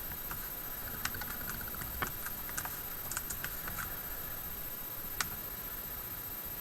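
Typing on a computer keyboard: a run of irregular key clicks, then a single louder click about five seconds in.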